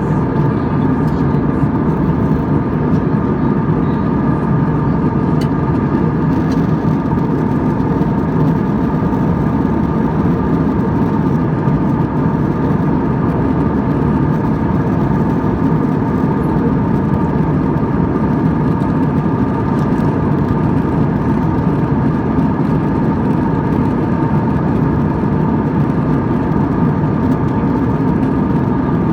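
Airliner jet engines and airflow heard from inside the passenger cabin: a loud, steady low rush with a few thin, steady whining tones above it.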